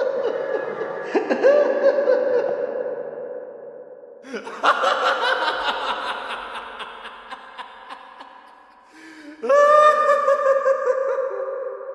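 Hysterical laughter in three long peals, each trailing off slowly: one fading over the first few seconds, another breaking out about four seconds in, and a third near ten seconds in.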